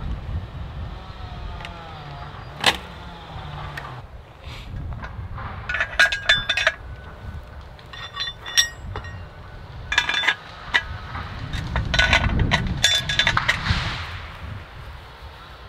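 Woven wire fence and metal fence hardware clinking and jangling in short bursts as the wire is handled and fastened to the posts by hand, with a low rushing rumble that swells near the end.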